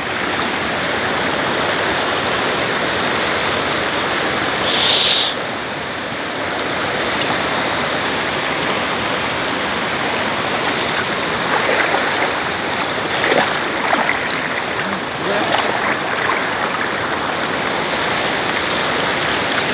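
Steady rush of flowing river water, with splashing and water streaming off a fishing net as it is lifted out. There is a brief, louder hiss about five seconds in.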